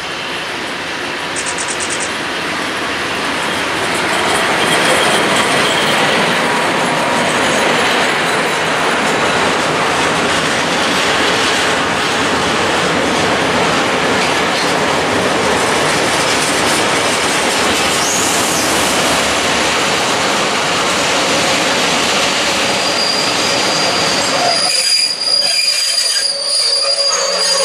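Freight train hauled by a PKP Cargo ET22 electric locomotive passing close by, its wagon wheels rolling over the rails. The noise grows over the first few seconds and stays loud. Near the end it thins and steady high tones come through.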